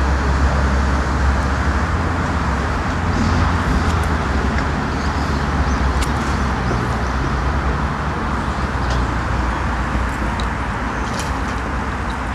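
Steady low outdoor rumble with a hiss over it, with a few faint clicks.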